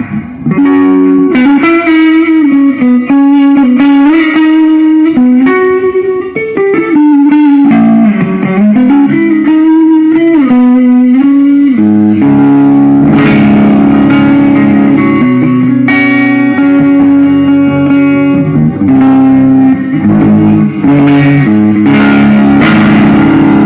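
Electric guitar playing a lead line over chords during a band sound check, joined by bass, with a fuller ensemble sound from about halfway through.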